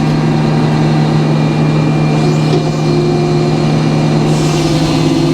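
Sawmill's engine running steadily, a loud constant drone; a second steady tone joins about three seconds in.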